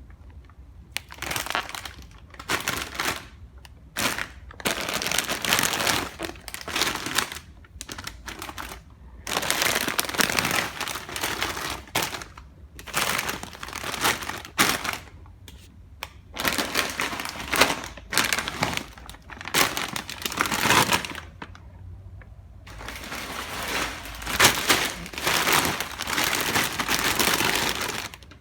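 Crisp chips crunching in repeated crackly bouts of one to three seconds each, with short pauses between them.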